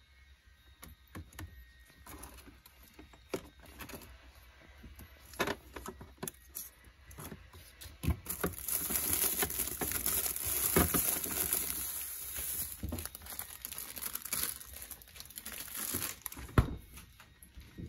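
Rummaging in a packed refrigerator: containers clicking and knocking on the shelves, then plastic bags crinkling densely from about eight seconds in. A single sharp knock comes near the end as the fridge door swings shut.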